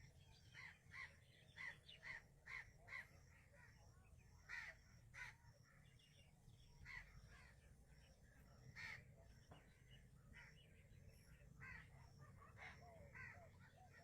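Faint bird calls: a run of short, harsh calls, several a second at first, then more spaced out, over a low background hum.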